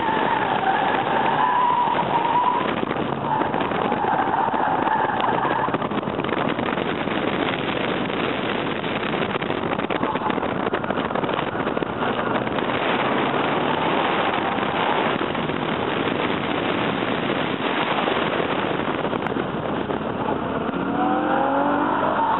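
Car being driven hard through an autocross course of cones: engine and road noise running loud throughout, with tires squealing through the corners in several stretches, most strongly in the first few seconds.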